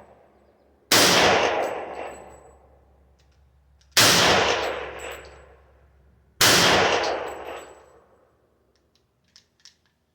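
Three shots from a Hi-Point JHP .45 ACP semi-automatic pistol, about a second in, about four seconds in and about six and a half seconds in, each followed by a long echoing tail. Two faint clicks come near the end.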